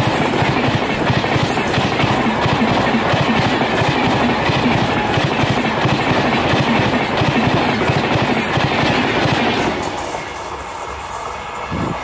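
Passenger coaches of the 12077 Chennai–Vijayawada Jan Shatabdi Express running past close by, with a loud, dense clatter of wheels on the rails. The noise drops off about ten seconds in.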